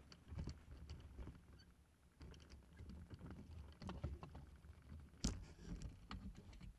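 Footsteps on dry grass with light clicks and knocks from a hang glider's frame as the glider is carried. About five seconds in comes one sharp thump as the glider is set down on the ground.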